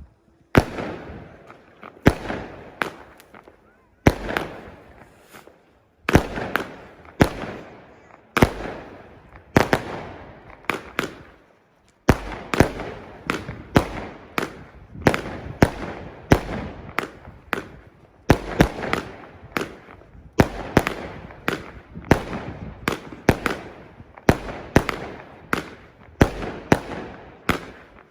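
New Year's fireworks exploding in a continuous barrage: sharp bangs, often two or three close together, each followed by a rolling, echoing tail, about one cluster every second.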